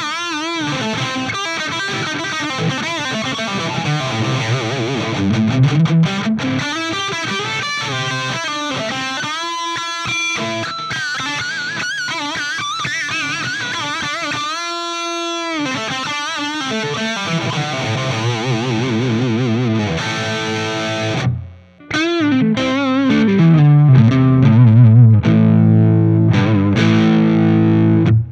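Gibson Les Paul Custom electric guitar played through distortion: a lead line of sustained notes with bends and vibrato, then louder low chords after a short break about 21 seconds in.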